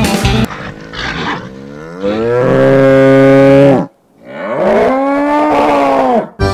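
Bull bellowing twice in long, deep moos. The first rises in pitch and is held loud before cutting off; the second arches up and falls away.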